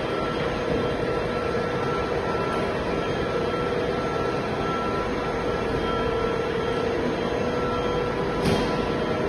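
Backhoe loader engine running steadily with an even mechanical hum, and one short sharp knock about eight and a half seconds in.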